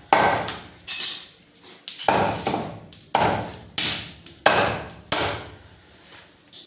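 Butcher's cleaver chopping through a goat leg, about ten heavy strokes at a steady pace, one every half to two-thirds of a second, each a sharp knock that rings briefly.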